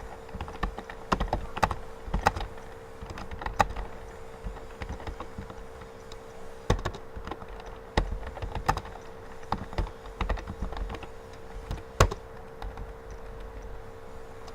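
Typing on a computer keyboard: irregular keystrokes, some louder than others, over a steady electrical hum.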